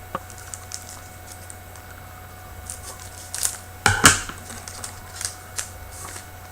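Hockey trading cards being handled and flipped through, a run of small clicks and rustles with a couple of sharper snaps about four seconds in.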